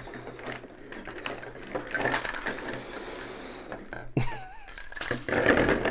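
Plastic string-light bulbs and their cable clattering and rustling as a strand is lifted and sorted by hand, with irregular clicks and knocks throughout.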